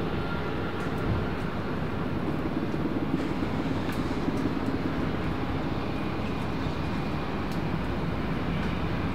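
Mil Mi-17 helicopter flying low on approach: steady rotor and twin-turboshaft engine noise.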